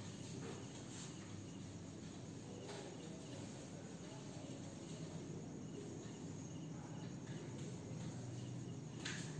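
Faint steady background noise with a low hum and faint insect chirping, likely crickets. A brief scrape or tap about nine seconds in.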